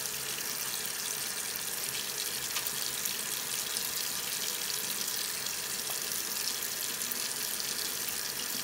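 Bathroom sink tap running steadily into a ceramic basin.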